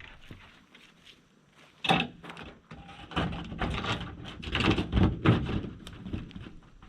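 Corrugated polycarbonate roofing panel being handled: a sharp knock about two seconds in, then a few seconds of irregular clattering and scraping as the sheet is shifted.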